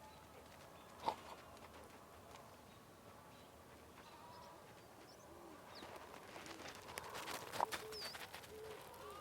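Farmyard ambience of birds calling: short high chirps and a few low cooing notes, with sharp clicks or knocks about a second in and a cluster of them around seven seconds in.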